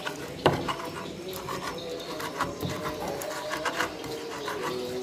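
Pestle (ulekan) scraping and pressing chilli sambal in an unglazed clay mortar (cobek): a run of short rasping scrapes, with one sharp knock about half a second in.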